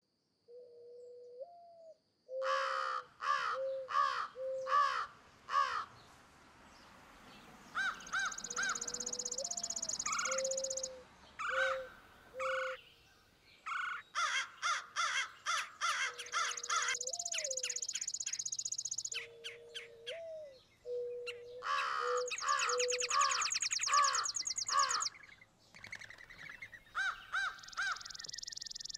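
Harsh animal calls in runs of several, about two a second, coming again and again. Between the runs there are long stretches of high trilling and a lower call with a short upward flick.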